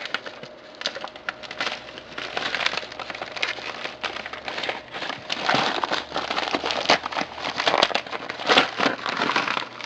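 Plastic shipping bag being ripped open and handled, with continuous irregular crinkling and crackling that grows louder and busier about halfway through.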